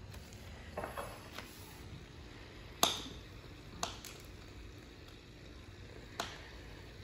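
Kitchen knife cutting a stick of butter on the counter and clinking against a glass measuring cup: a handful of sharp taps and clinks with a short ring, the loudest about three seconds in.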